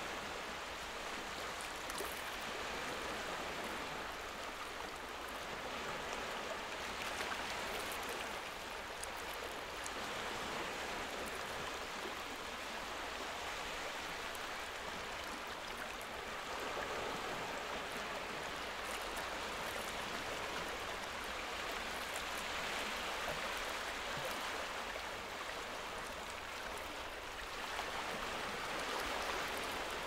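Steady rain, a continuous even hiss with faint scattered drop ticks.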